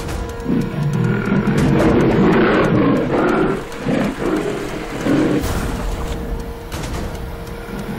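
Tigers growling in a fight: a run of loud, rough, irregular growls, over background music with a held note.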